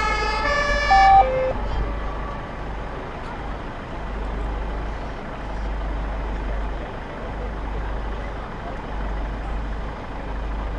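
German two-tone fire-engine siren (Martinshorn) alternating between its high and low notes, cutting off about a second in, followed by two brief single tones, one higher, one lower. A steady low rumble remains afterwards.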